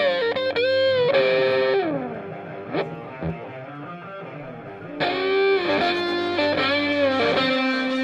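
Background music led by an electric guitar with effects, playing notes that bend and slide in pitch: one phrase in the first two seconds, a quieter stretch, and a second phrase starting about five seconds in.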